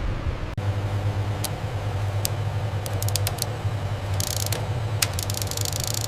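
Machinery running with a steady low hum, with sharp irregular clicks and short bursts of hissing over it.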